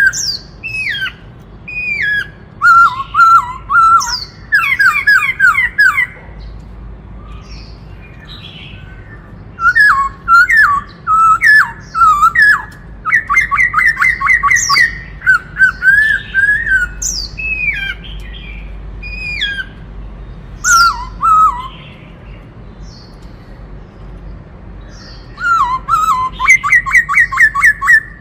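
Black-throated laughingthrush singing loud whistled phrases in bursts, including fast runs of repeated notes and sharp rising calls, with a few seconds' pause twice.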